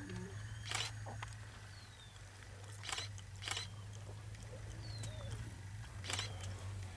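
Camera shutter clicks, four sharp ones about a second in, around three seconds, half a second later, and about six seconds in, over a steady low hum, with a few faint short calls in between.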